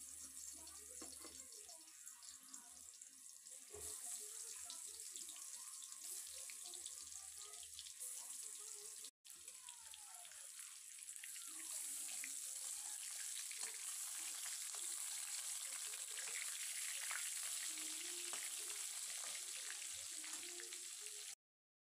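Soya chaap sticks deep-frying in hot oil in a kadhai: a steady sizzle with fine crackling that grows louder as more pieces go into the oil. The sound breaks off briefly about nine seconds in.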